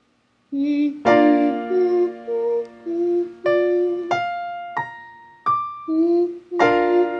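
Outro music on an electric piano or keyboard: single notes and chords struck about every half second to second, each ringing and fading before the next, starting after a brief silence.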